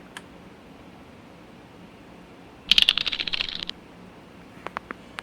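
Keys of a Dierya DK63 mechanical keyboard pressed in a fast flurry of clacks lasting about a second, then three single key clicks near the end.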